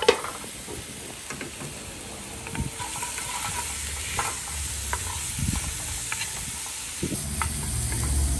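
Chopped onions and bell peppers sizzling as they hit hot grease in a cast-iron pot, with a wooden spoon stirring and scraping them; a sharp knock right at the start. A low rumble rises near the end.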